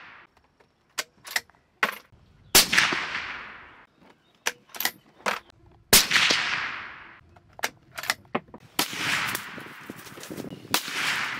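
Two shots from a suppressed Ruger American bolt-action rifle in .308 Winchester, about three and a half seconds apart, each a sharp crack with a long echo rolling away. Between them come three quick metallic clicks of the bolt being cycled. Near the end a steadier rushing noise takes over.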